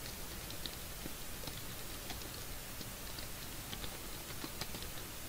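Typing on a computer keyboard: faint, irregular key clicks over a steady background hiss.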